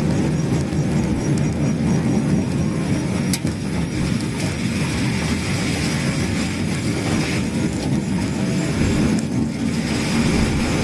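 COMS single-seat electric car driving, with steady road and drive noise and a repeated 'kyu-kyu-kyu' squeak that is heard all through driving and whose cause is unknown to the owner.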